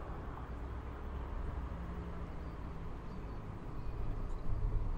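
Outdoor ambience: a steady low rumble with a faint hiss above it and no clear single event.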